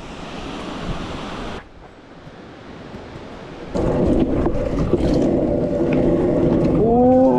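Rushing river water below for the first second and a half, then a cut. After a short quieter stretch, a stunt scooter's wheels start rolling on wet, rough asphalt, with wind on the microphone and small knocks from cracks in the road. A rising pitched tone begins near the end.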